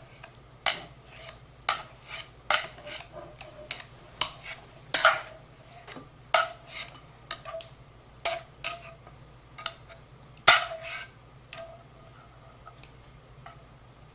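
Kitchen utensils clinking and knocking against a cooking pot and serving bowls while noodles are served: about twenty separate strikes at uneven intervals, each with a short ringing tail.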